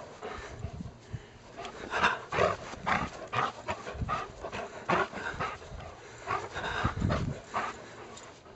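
A dog panting in irregular short bursts while it plays tug with a toy held in its mouth.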